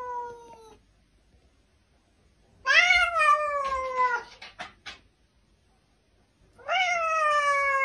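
Domestic cat meowing: two long, drawn-out meows, each rising briefly and then falling in pitch, after the tail of an earlier meow at the start. A few faint clicks follow the first full meow.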